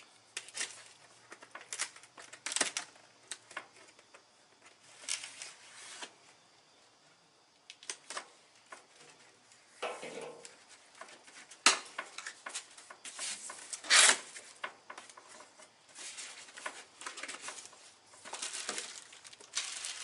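Cardboard box being torn open and unpacked: irregular tearing and rustling of cardboard and plastic packaging, with a sharp knock and a louder rustle in the middle.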